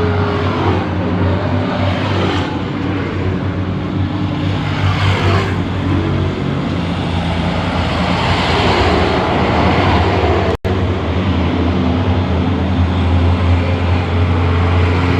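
Heavy truck engine labouring up a steep grade: a steady low drone under road and traffic noise, with a momentary dropout about ten and a half seconds in.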